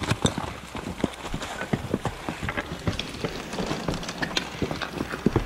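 Quick, irregular clatter of knocks and clicks, like hurried footsteps with gear rattling, as an airsoft player moves in close.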